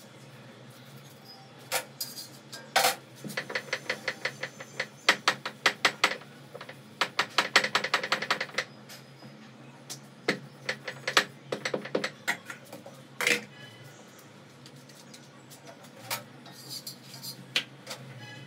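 Wooden rolling pin clacking against a round rolling board as roti dough is rolled out, in quick runs of clicks of about five a second that come in several spells. A steady low hum runs underneath.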